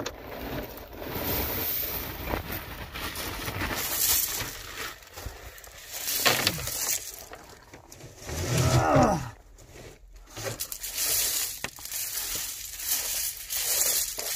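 Crushed drainage gravel poured from a torn plastic bag and spread over the ground by bare hands: stones scraping and clattering, the bag crinkling. A short falling grunt a little past the middle.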